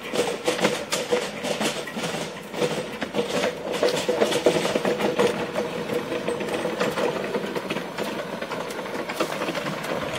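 Little Engines 2-6-0 live steam locomotive running, a rapid, uneven clatter of sharp ticks over a steady hum.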